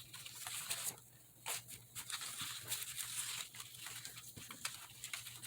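Paper and sticker sheets rustling and crinkling as they are handled, with scattered light taps and clicks.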